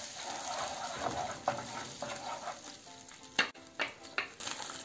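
A wooden spatula stirring tomato sauce and garlic in hot oil in a non-stick frying pan: a steady soft sizzle with the scrape of the spatula across the pan, and a few sharper knocks of it about three and a half seconds in.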